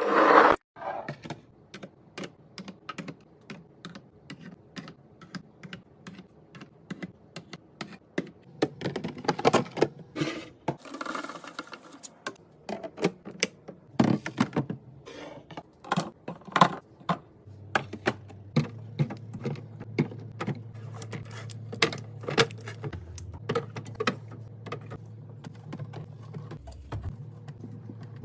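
Rapid, irregular light clicks, taps and knocks of containers, lids and packaging being handled and set down during pantry and fridge restocking, with some rustling a third of the way in. A low steady hum starts partway through.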